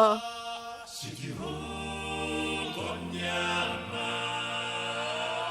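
Several voices singing a cappella, holding chords over a low bass voice, with the chord changing every second or so.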